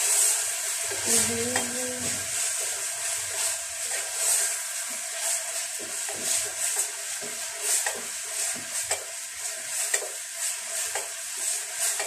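A spoon stirring and scraping kale stew in a small metal sufuria, about one to two scrapes a second, over a steady hiss from the simmering stew.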